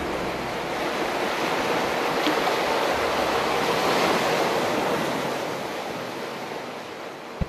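Ocean surf: an even rush of waves that swells about halfway through and fades toward the end.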